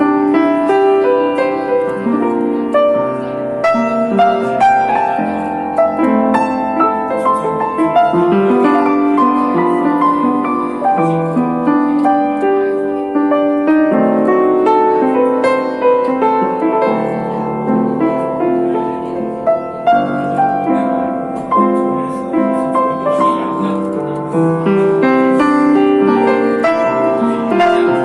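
Piano playing an instrumental melody over chords, notes changing continuously.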